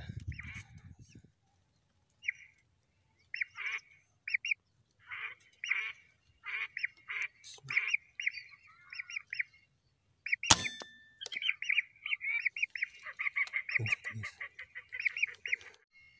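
Lesser whistling ducks calling: many short, repeated high whistles, coming thicker toward the end. About ten and a half seconds in there is one loud, sharp click.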